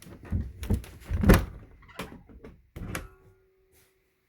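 RV bunk-room interior doors being opened: a run of clicks and knocks from the latches and door panels, the loudest about a second in, dying away after about three seconds.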